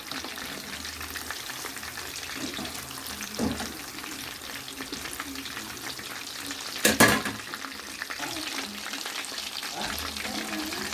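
Chicken kebab pieces deep-frying in hot oil, with a steady sizzle. There is a sharp knock about seven seconds in and a lighter one about halfway through.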